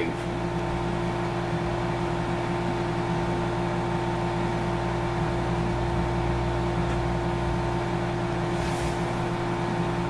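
Microwave oven running with a steady hum, heating a bowl of snow.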